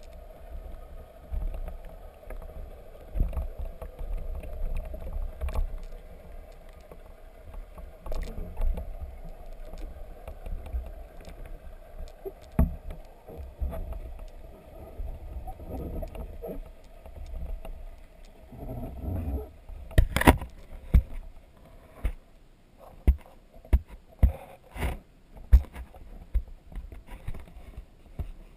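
Muffled underwater sound through a submerged camera housing: a low rumble with a steady hum. About two-thirds of the way in it gives way to a run of sharp knocks and clicks.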